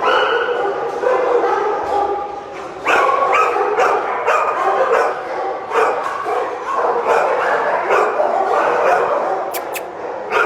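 Several shelter dogs in kennels barking and yipping at once, with barks overlapping and coming in quick succession.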